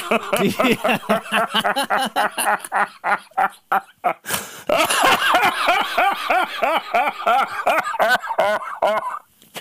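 Two men laughing hard together, a long run of quick, pitched 'ha-ha' pulses with a short break about four seconds in, stopping just before the end.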